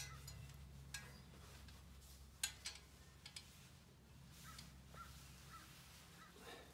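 Faint, irregular clicks and knocks from a steel wall-mount hose reel and rubber hose being handled, over a low steady hum. A cluster of the clicks comes in the middle.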